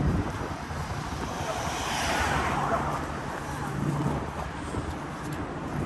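City street traffic: road vehicles running past, with one swelling up and passing about two seconds in.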